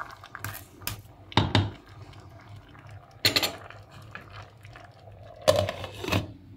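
A wooden spoon knocking against a stainless-steel cooking pot of tomato and squash, with the pot clanking: about six sharp knocks spread over the few seconds, the loudest about a second and a half in. A faint steady low hum runs underneath.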